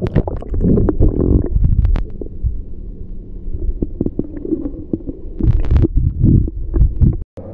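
Water sloshing and knocking against a GoPro in its waterproof housing, heard muffled through the housing: irregular dull rumbles and thumps with sharp knocks.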